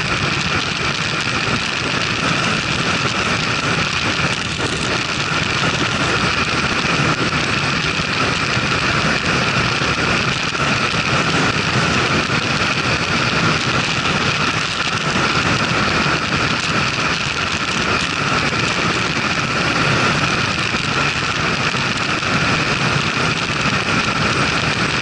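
Motorcycle cruising at about 100 km/h: a steady rush of wind over the onboard camera mixed with engine and road noise, unchanging throughout.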